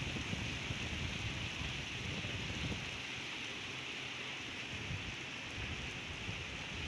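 Heavy rain falling steadily: a dense, even hiss, with an uneven low rumble underneath.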